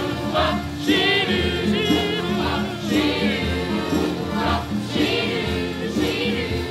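A musical-theatre song: a group of voices singing over an accompaniment with a steady beat.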